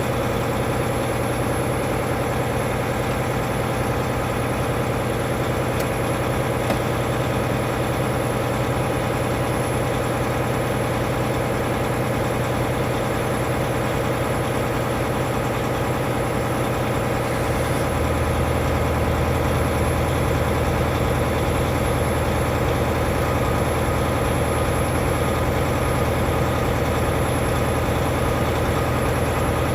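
Semi-truck diesel engine idling steadily. About two-thirds of the way through, its low note shifts and it gets slightly louder.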